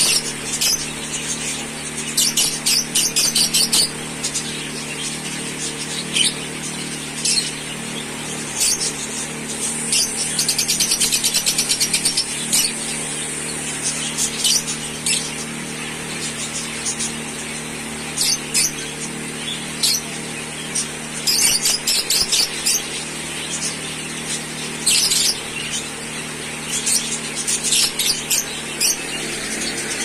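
Fischer's lovebirds calling: short, high, sharp chirps in clusters every few seconds, with a longer rapid chatter about ten seconds in, over a steady low hum.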